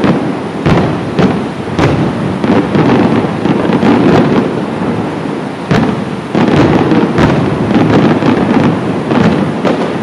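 Fireworks display: aerial shells bursting in a rapid series of bangs over a continuous low rumble.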